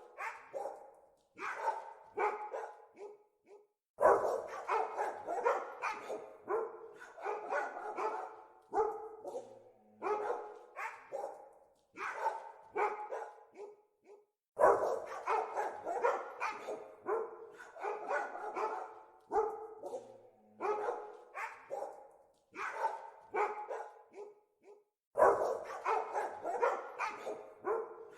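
Dogs barking over and over in quick volleys of short barks with only brief pauses, breaking out loudest about every ten seconds.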